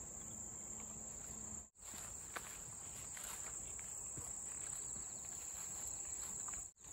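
Grass insects chirping in a steady, high-pitched chorus, with two brief dropouts, one about two seconds in and one near the end.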